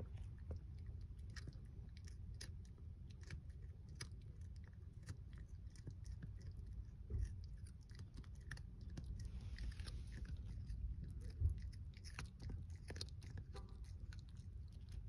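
Chihuahua gnawing on a chew stick: a steady run of small sharp clicks and crunches from its teeth, with a low rumble underneath and two louder knocks about seven and eleven seconds in.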